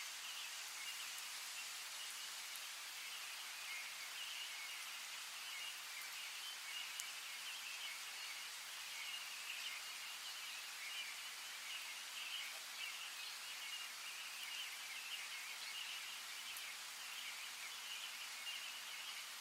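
Forest and river ambience: a steady hiss of running water under a dense, continuous high-pitched chorus of calling wildlife, with a few faint ticks.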